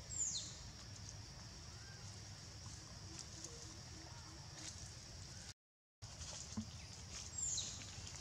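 Forest ambience: a steady high insect drone over a low rumble, with a short high squeal that falls sharply in pitch at the start and again near the end. The sound cuts out completely for about half a second a little past the middle.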